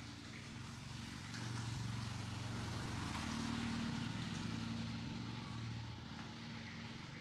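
Low engine hum that swells about a second in, holds for a few seconds, then fades, like a motor vehicle passing at a distance.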